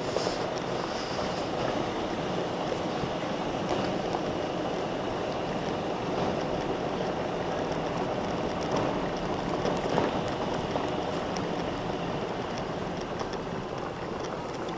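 Golf cart rolling along a gravel road: steady tyre noise on the loose stone, with many scattered small clicks and pops of gravel under the wheels.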